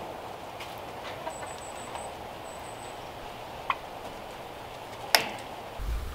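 A few sharp single clicks and knocks from hands working plastic cable ties around a wooden fence post; the loudest comes about five seconds in. A thin high chirp sounds twice, about one and two and a half seconds in.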